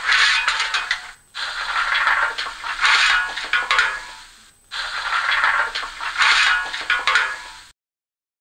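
Coal-shovelling sound effect from the sound decoder of a PIKO N-scale BR 82 steam locomotive model, played through the model's small speaker. A shovel scrapes into coal with rattling lumps, over and over, with short breaks about a second in and again past the middle, then cuts off abruptly near the end.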